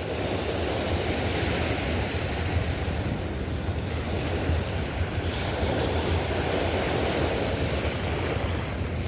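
Steady rushing noise of wind and fast-flowing river water, with wind rumbling on the microphone.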